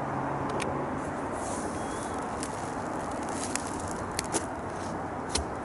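About six sharp clicks and snaps scattered over a steady outdoor hiss, the loudest in the second half.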